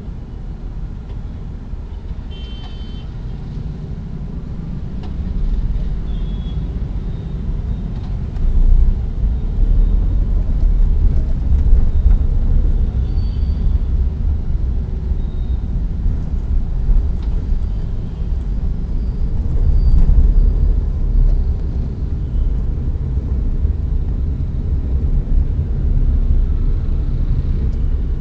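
Low rumble of a Tata Nexon's engine and tyres heard from inside the car's cabin while it drives, growing louder after the first several seconds.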